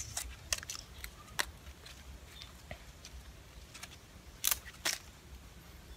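Gerbera roots and clinging soil crackling and snapping as the clump is pulled apart by hand: scattered sharp clicks, with two louder snaps about half a second apart near the end.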